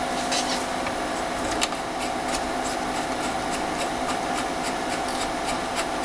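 Steady fan hum from powered-up bench test equipment, with a steady whine and faint scattered ticks over it.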